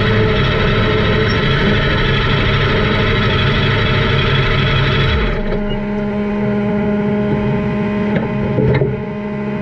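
A motor vehicle's engine running steadily under load. About five seconds in it drops suddenly to a quieter, lower steady note.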